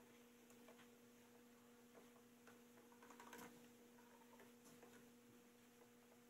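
Near silence: a faint steady electrical hum, with a few soft clicks as small wooden clock parts are handled.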